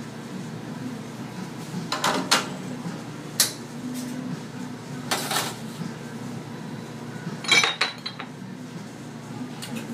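Metal and ceramic clinks and knocks as a portafilter and a ceramic cup are handled at a Synesso espresso machine: a handful of separate sharp hits, the loudest a ringing cluster near the end as the cup is set down. A steady low hum runs underneath.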